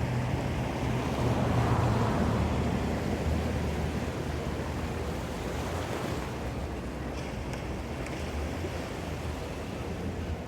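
Ocean surf washing in, swelling about a second or two in and then easing off, over a low steady hum.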